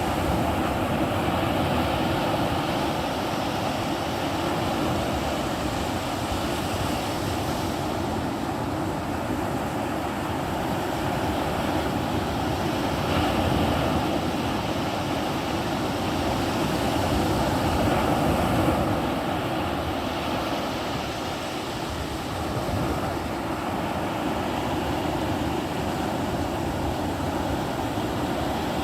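Atlantic ocean waves breaking and washing on the shore in a steady surf, swelling louder a couple of times and easing off, with some wind on the microphone.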